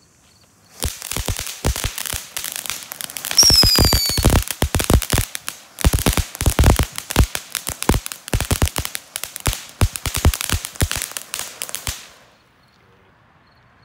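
Consumer ground fountain firework burning: a dense run of crackles and sharp pops that starts about a second in and cuts out about two seconds before the end. A short falling whistle sounds over the crackling about three and a half seconds in, and there is a brief break near the middle.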